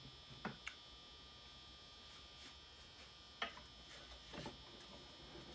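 Faint steady electrical buzz from fluorescent shop lights, with a few light clicks and taps from handling tools.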